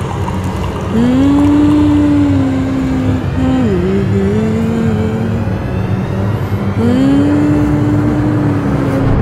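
Soundtrack music of long, held low notes that slide up into pitch, with one note dipping down and back up about midway.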